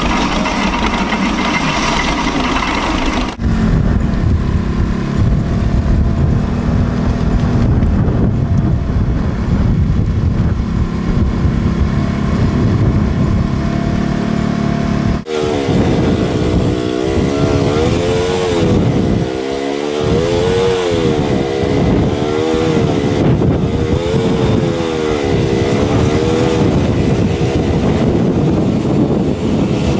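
Tractor engines running, the sound changing abruptly twice as the scene cuts. From about halfway, a pitched engine drone wavers down and up in a regular cycle about every second and a half.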